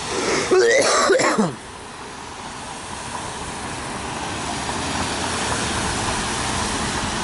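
A car driving past on a wet road, the hiss of its tyres on the water swelling gradually to a peak about five seconds in and then fading slightly.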